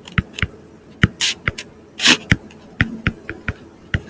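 Pen stylus tapping and scraping on a touchscreen while handwriting: an irregular string of sharp taps, about four a second, with a couple of slightly longer scratchy strokes.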